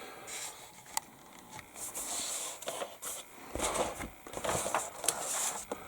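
Pages of a paper instruction booklet being turned and handled: irregular paper rustles with a few small clicks.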